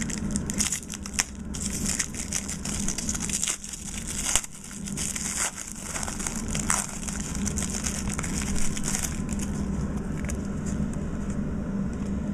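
Foil wrapper of a 1993-94 Topps Stadium Club basketball card pack being torn open and crinkled in the hands, with crackles and clicks. The crinkling eases off about nine seconds in.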